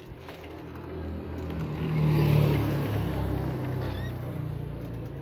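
A motor engine passing by, growing louder to a peak about two seconds in and then fading away.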